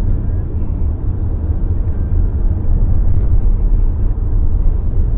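Steady low road and tyre rumble inside the cabin of a Toyota Corolla Cross hybrid on the move, the car being one whose passengers call it very noisy for its poor sound insulation.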